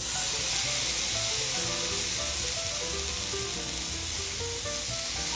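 A ball of ground beef sizzling steadily in a hot cast-iron skillet. Background music with a bass line plays under it.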